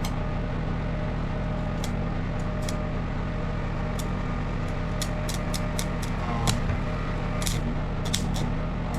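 Generator engine running steadily under load, with scattered sharp crackles and snaps from a stick welder's arc being struck to tack two pieces of steel together.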